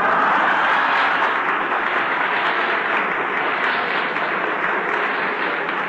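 Audience applauding, starting suddenly and slowly dying down.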